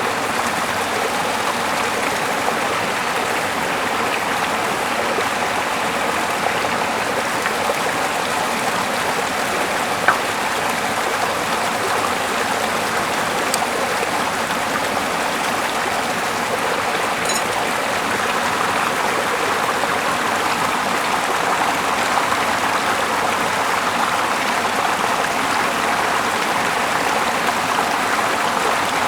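Steady rushing noise of flowing water, with one sharp click about ten seconds in.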